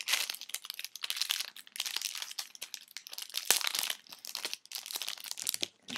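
Plastic wrapper of a trading card pack crinkling and tearing as it is opened, a dense irregular crackle that dies down near the end.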